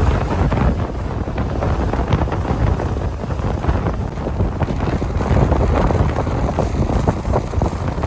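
Strong gusty wind of an approaching typhoon buffeting the microphone: loud, low rumbling noise that swells and eases with the gusts.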